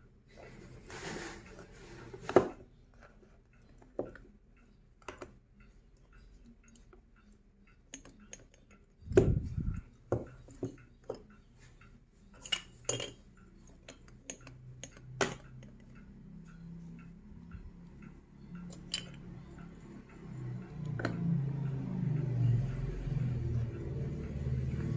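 Plastic magnetic sticks and balls of a construction toy clicking and clacking as pieces snap together and are set down on a table: scattered sharp clicks, the loudest about two seconds in and again about nine seconds in. Over the last few seconds a low hum rises in level.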